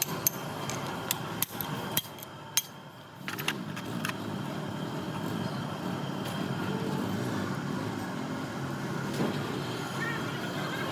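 Several sharp clicks and knocks in the first few seconds, then a steady low background hum.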